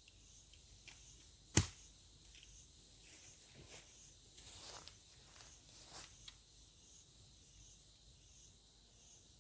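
A single sharp crack or knock about a second and a half in, then a few softer rustles and scrapes of sticks and dry leaves being handled while a makeshift smoker is put together, over a steady high hiss.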